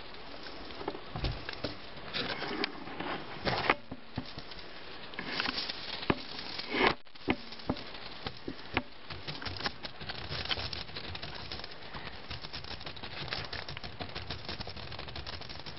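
Wet wire-mesh minnow trap being handled and opened: scattered clicks and rattles of the mesh, with a few sharper knocks near the middle, over water pattering from the trap and a steady hiss.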